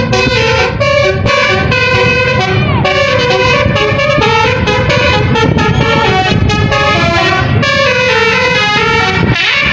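A Basuri 'telolet' multi-tone melody horn on a tour bus playing a quick tune, short pitched notes stepping up and down one after another without a break, over a low rumble.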